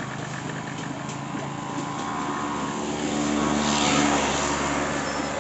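Electric clay-crushing machine for pottery clay running with a steady motor drone. About three seconds in, a louder rough grinding noise builds and then eases as clay fed into the hopper passes through the crushing rollers, breaking up the stones and lime lumps in it.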